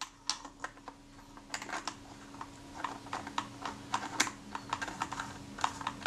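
Small irregular metallic clicks and scrapes of a cylindrical spanner tool turning a threaded retaining ring inside a Retina IIC camera body, tightening down the shutter and lens assembly. The clicks come singly and in quick little clusters.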